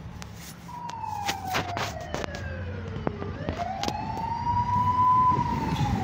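Vehicle siren wailing: about a second in, a single tone falls slowly in pitch for two seconds, then sweeps back up and holds high. Underneath is the low rumble of a vehicle driving on a dirt road, with scattered knocks and rattles.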